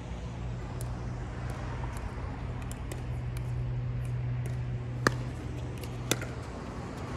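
Pickleball paddles striking a plastic pickleball: two sharp pops about a second apart, a serve and its return, over a steady low hum. Fainter pops from play on neighbouring courts come through.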